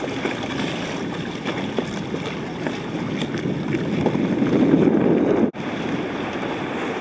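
Wind buffeting the microphone over water noise around a boat on choppy water. It swells a little, then cuts out abruptly for a moment about five and a half seconds in.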